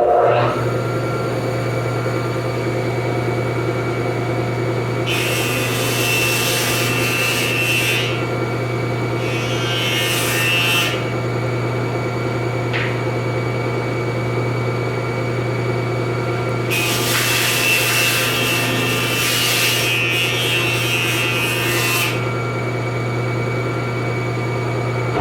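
Felder Hammer C3-31 combination machine running as a jointer, its motor and cutterhead giving a steady hum. A rough board is face-jointed across the cutterhead in three passes, heard as three louder, hissier stretches of cutting, the last and longest near the end.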